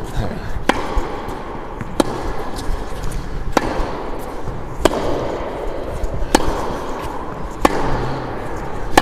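Tennis ball rally: the ball struck by racket strings and bouncing on a hard court, six sharp pops in steady rhythm about every second and a half, from a Head Prestige Pro racket on the near side.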